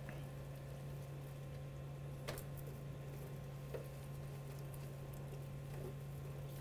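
Three faint clicks from snipping and handling tomato vines, over a steady low hum.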